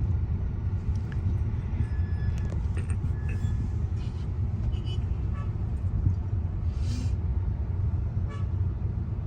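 Steady low rumble of a car creeping in slow traffic, heard from inside the cabin, with a few faint short horn toots about two and three seconds in and a brief hiss about seven seconds in.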